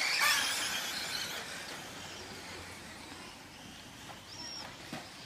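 Vintage 1990s 1/10-scale electric 2WD stadium trucks with modified brushed motors racing on a dirt track: a high-pitched, wavering motor whine, loudest at the start and fading as the pack pulls away.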